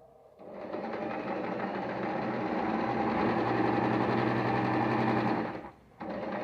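Singer electric sewing machine running steadily as it stitches fabric. It starts just after the beginning, stops briefly near the end, then starts again.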